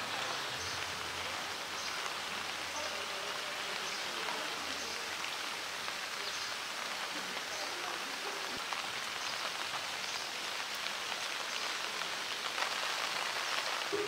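Steady rain falling on a pool and wet concrete: an even hiss flecked with small drop ticks.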